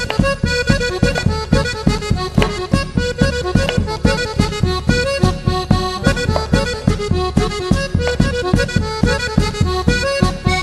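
Background music with a quick, steady beat and a sustained melody line.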